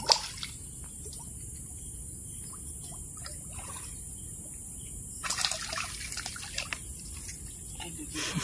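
A hooked fish splashing at the surface of a pond: one sharp splash at the start, scattered small splashes, then a longer burst of splashing about five seconds in as the fish is brought to the edge.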